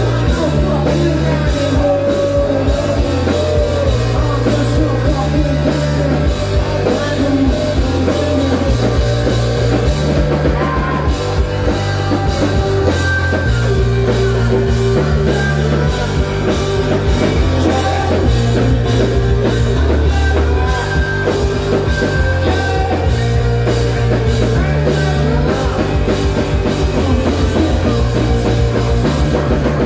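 Live rock band playing loud through a venue PA, heard from the crowd: a steady drum beat, a bass line stepping between notes, guitar and keyboard, with vocals.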